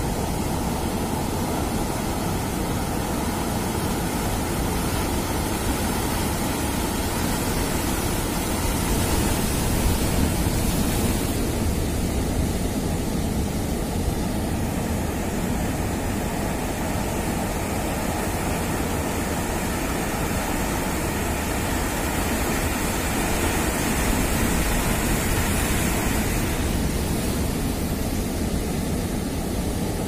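Heavy ocean surf breaking and washing up the beach: a steady rush of water and foam, swelling a little louder about ten seconds in and again a few seconds before the end.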